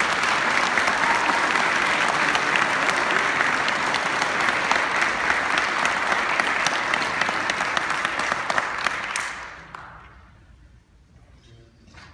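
Audience applauding, a dense patter of many hands that fades out about nine and a half seconds in.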